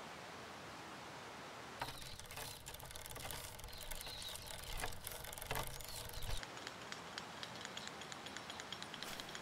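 Monark bicycle being ridden on a road: a low tyre rumble with the chain and frame clicking and rattling, starting suddenly about two seconds in and cutting off sharply after about six seconds. Fainter light ticking follows.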